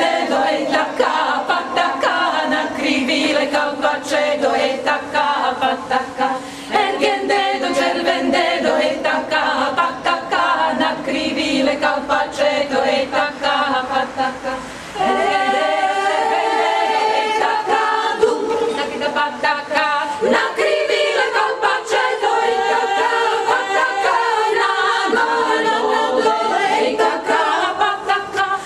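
Women's choir singing a cappella, with a brief pause about halfway through before the singing resumes.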